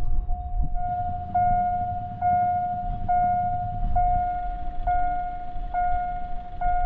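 An electronic warning alarm sounding one steady tone, re-struck about once a second, over a continuous low rumble.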